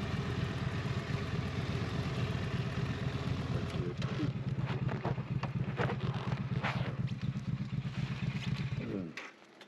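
Motorcycle engine idling steadily, then switched off about nine seconds in, its sound dropping away abruptly.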